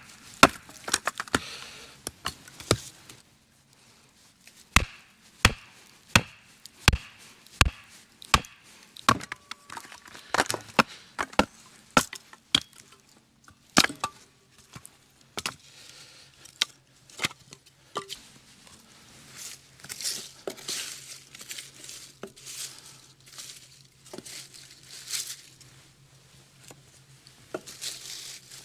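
Hatchet splitting firewood into kindling on a wooden chopping block: a series of sharp chops, with an even run of about six strikes a little under a second apart about five seconds in. Near the end, softer rustling and clatter as pieces of kindling and dry pine needles are laid into a steel fire ring.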